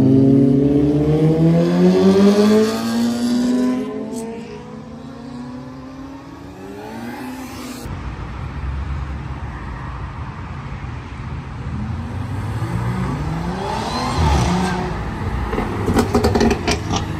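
Sport motorcycles accelerating away, their engine notes climbing in pitch for about three seconds and then fading. Later, cars approach and pass with a low engine rumble, one engine revving up briefly, with a few sharp clicks near the end.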